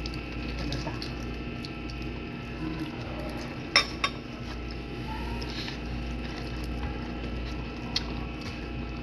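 Eating by hand from a plate of barbecued chicken over a steady background hum. A couple of sharp clicks of dishes come about four seconds in, and one more near the end.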